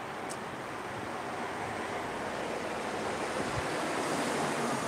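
Steady rushing background noise, like air or wind on the microphone, growing slightly louder over a few seconds.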